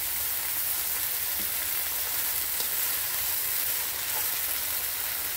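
Chicken strips and whole shrimp frying in hot oil in a pan, with a steady sizzle as they are stirred.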